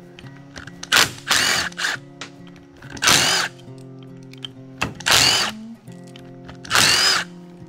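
Cordless impact driver with a socket spinning out the four bolts of a pressure-washer pump's side cover: four short bursts about two seconds apart, each with a rising whine.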